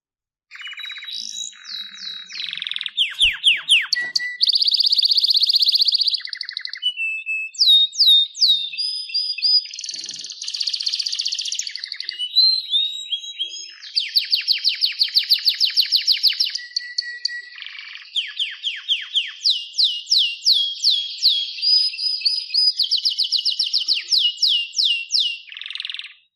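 Domestic canary singing one long, continuous song of rapid trills, buzzy rolls and fast downward-sweeping repeated notes, changing from tour to tour and ending abruptly near the end.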